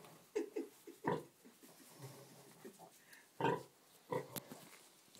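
Pigs, a nursing sow and her piglets, giving short grunts, about half a dozen separate ones spaced irregularly, as the piglets nose for teats.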